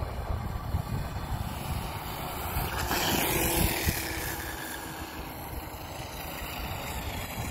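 Duratrax DTX 500 radio-controlled motorcycle riding on asphalt. About three seconds in it passes close by, and its high motor whine falls in pitch as it goes. A gusty rumble of wind on the microphone runs underneath.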